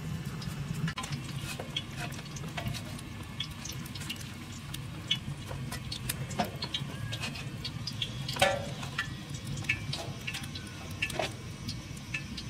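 Hands handling floured fish on a steel tray: scattered light clicks and taps, with a sharper click about eight and a half seconds in, over a low steady hum.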